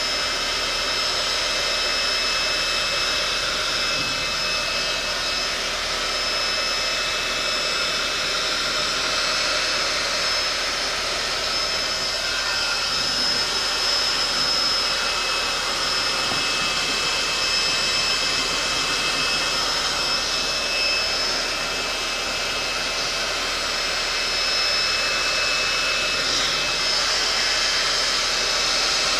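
Electric heat gun running steadily, its fan blowing a constant rush of air with a thin high whine over it, as it heats faded plastic trim.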